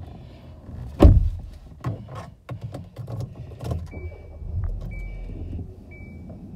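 Knocks, clunks and rustling of a person shifting about inside a car, the loudest a heavy thump about a second in. From about four seconds in, a car's warning chime beeps about once a second.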